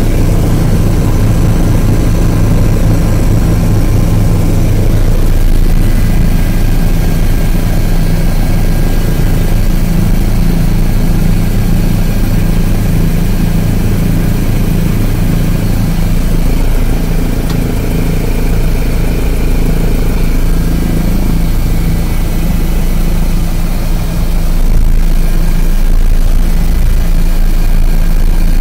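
Helicopter engine and rotor noise heard from inside the cabin in flight: a loud, steady drone with a strong low hum.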